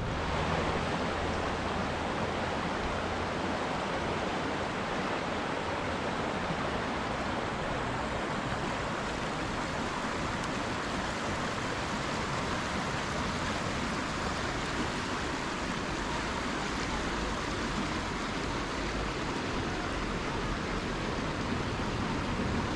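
Steady rush of flowing water, an even hiss without breaks.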